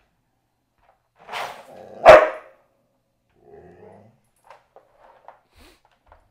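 Australian Shepherd in a wire crate giving one sharp bark about two seconds in, after a shorter huff, then a low growl. This is the defensive reaction of a crate-reactive dog to a person standing close to its crate. Faint clicks and rattles follow as the dog moves about inside the crate.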